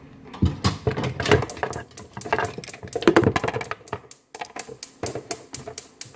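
Glue and shaving-cream slime being mixed in a bowl, not yet set: a rapid, irregular run of sticky clicks and smacks, with a brief pause about four seconds in.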